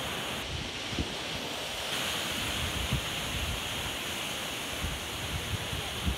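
Steady surf washing on the shore, mixed with wind on the microphone, with a few soft low thumps.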